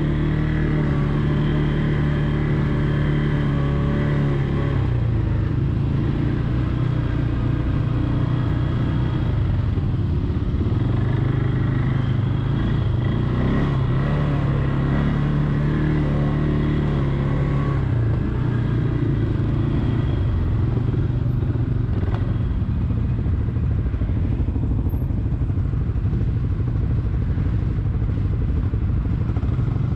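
Quad bike (ATV) engine running while riding, its pitch rising and falling with the throttle; it drops to a lower pitch about five seconds in.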